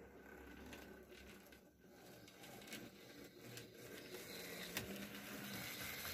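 N-scale model of an S 699 electric locomotive running along the track: a faint steady motor hum with scattered clicks of the wheels over the rails. It grows louder toward the end as the model approaches.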